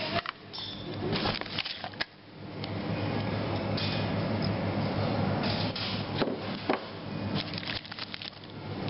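Plastic packaging rustling as small items are handled, with a few sharp knocks of things being set down on a wooden table, over a low steady hum.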